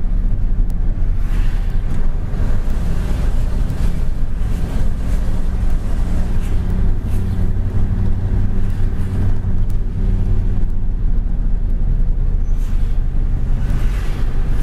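Steady low drone of a truck's engine with road noise, heard from inside the moving cab, with occasional light rattles.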